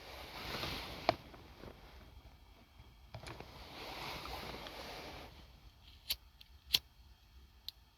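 Hand tools and parts being handled during a mechanic's work: two stretches of soft shuffling, then a few sharp metallic clicks, the loudest a little before seven seconds in.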